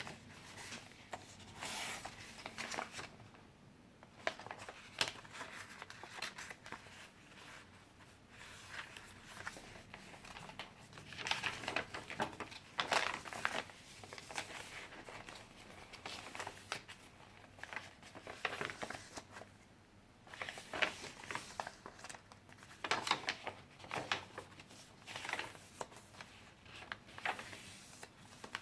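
Pages of handmade paper junk journals being turned and handled: paper rustling and crinkling on and off, with louder crackles every second or so.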